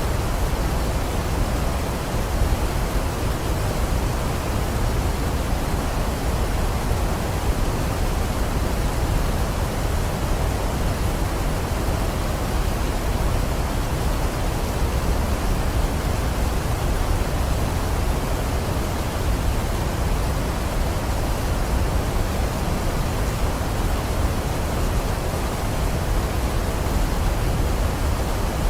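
Waterfall rushing steadily, a continuous even roar of falling water, heaviest in the low end.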